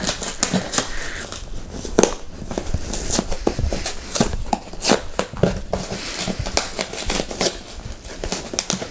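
Corrugated cardboard shipping box being pried apart by hand: an irregular run of crackling, scraping and tearing of cardboard and packing tape, with a sharper crack about two seconds in.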